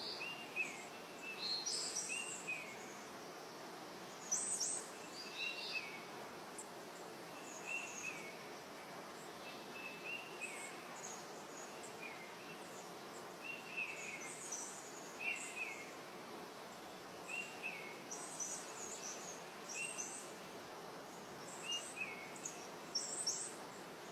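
Birds calling over a steady outdoor background hiss: one bird repeats a short chirp about every second or two, while another gives higher, brighter calls now and then.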